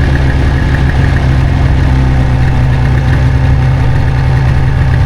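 Snowmobile engine running at a steady speed, a loud, even drone with no revving.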